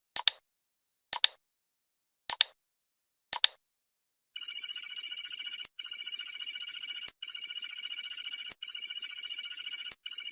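Quiz countdown-timer sound effect: four short double ticks about a second apart, then a high electronic alarm bell ringing in stretches of about a second and a half with brief breaks.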